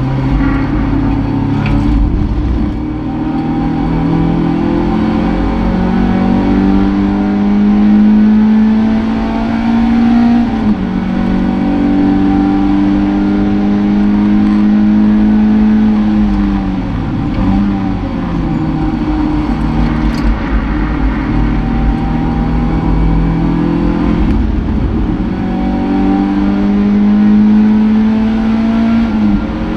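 Toyota MR2 race car engine heard from inside its cabin under racing load: the pitch climbs through each gear and drops back at the shifts, with a short dip near the middle as it slows for a corner and picks up again.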